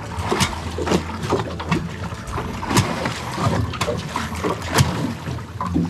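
Water slapping and sloshing against the hull of a small boat at sea, in irregular sharp splashes, over a steady low rumble.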